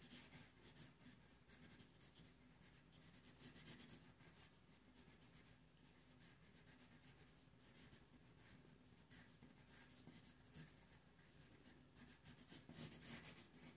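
Faint scratching of drawing strokes on paper, short strokes with small pauses, a little louder near the end.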